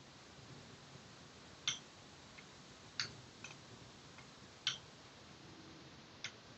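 Sharp metallic clicks as a disc detainer pick turns the discs inside a Parkside disc detainer padlock: four clear clicks spread out, with a few fainter ticks between.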